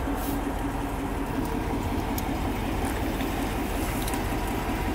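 A car engine idling steadily, a low even hum, with a few faint ticks over it.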